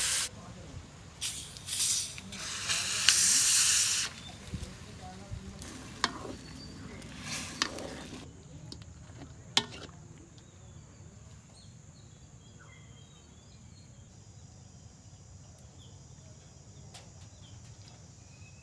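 Chicken frying in a pan: loud bursts of sizzling over the first four seconds, fading away with a few sharp clicks, then a faint steady sizzle.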